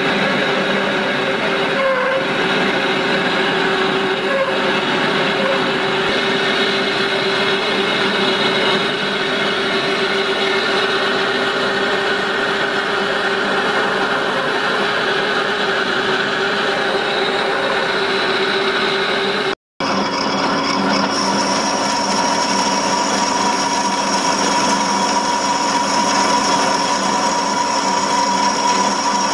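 Harrison lathe running steadily while a twist drill cuts into a solid cast-iron cylinder block. After an abrupt cut about two-thirds through, the lathe runs on at a different, higher pitch as a boring bar cuts the bore.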